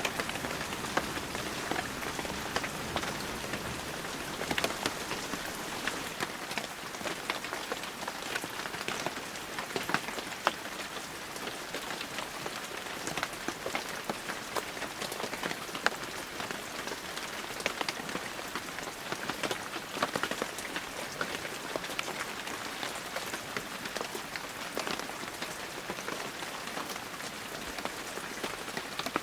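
Heavy rain falling steadily, a dense hiss full of sharp, distinct drop impacts.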